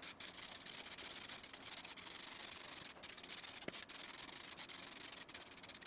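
Compressed-air paint spray gun hissing as it sprays leather colourant onto a car seat, the trigger let go for a few brief moments.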